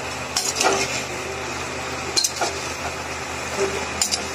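Spoon stirring fried gatte (gram-flour dumplings) through thick masala in a metal pan, with about half a dozen short scrapes and clinks against the pan over a steady sizzle from the cooking masala.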